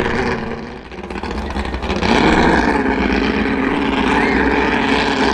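Jet sprint boat engine at high revs, dipping briefly about a second in, then revving back up and holding loud.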